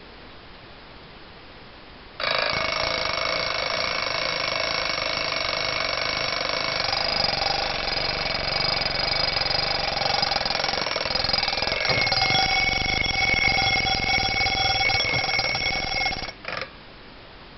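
Junghans alarm clock's bell ringing loudly and continuously for about fourteen seconds, starting suddenly about two seconds in. It cuts off near the end, with one brief extra ring just after.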